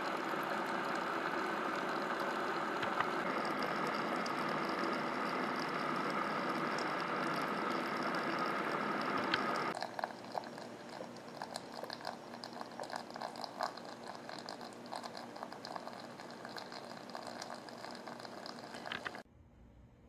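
Ninja DualBrew Pro drip coffee maker brewing a full carafe: a steady hiss of water being heated and pushed through. About ten seconds in it drops to quieter irregular crackling and ticking, and it stops abruptly near the end.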